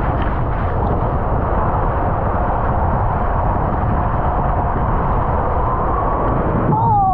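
Steady rushing and rumbling of water and a rider sliding through the enclosed tube of a ProSlide loop water slide, with a brief wavering tone near the end.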